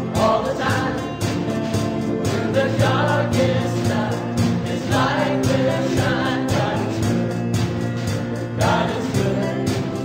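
Mixed vocal group singing a contemporary praise song together into microphones, over held instrumental backing.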